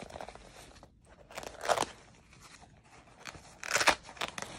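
Rustling and crinkling of a fabric adapter pouch and its plastic packaging being handled and opened, with two louder bursts, one about a second and a half in and one near the end.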